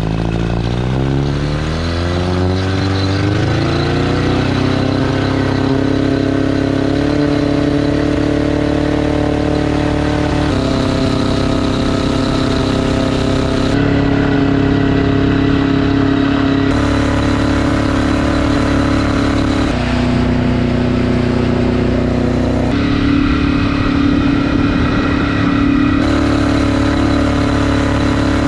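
1961 Evinrude Big Twin 40 hp two-cylinder, two-stroke jet outboard running under throttle. It revs up over the first few seconds, then holds a steady high speed, with abrupt small shifts in pitch every few seconds.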